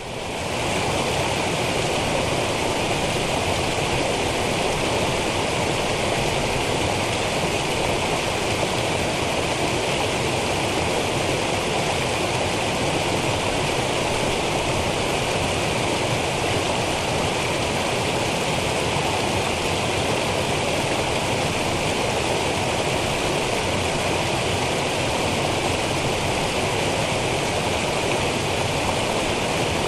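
Small rocky cascade of a woodland brook: a steady, even rush and splash of water tumbling over stones, fading in at the very start.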